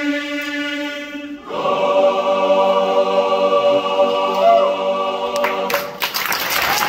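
Boys' choir singing a held chord, then swelling into a louder, fuller final chord that is sustained for about four seconds. The chord cuts off near the end and the audience breaks into applause.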